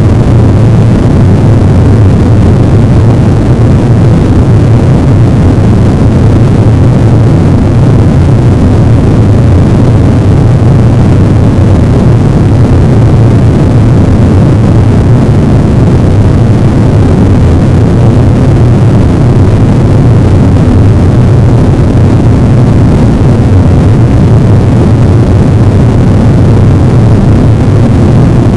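A loud, unchanging wall of dense noise, heaviest in the low end, with no pitch, rhythm or breaks: a harsh-noise-wall style noise recording.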